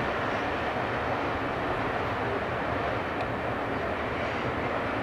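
Loaded rock hopper cars at the rear of a freight train rolling away on the rails: a steady rumble of steel wheels on track, easing slightly after about three seconds.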